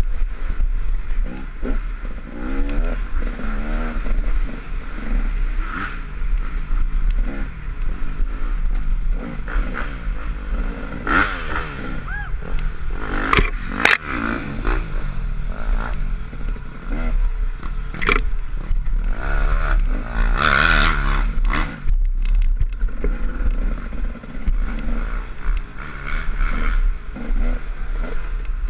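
Off-road motorcycle engine running hard along a bumpy woods trail, its pitch rising and falling with the throttle, over a steady low rumble. Several sharp knocks and clatters come through about 11 to 21 seconds in.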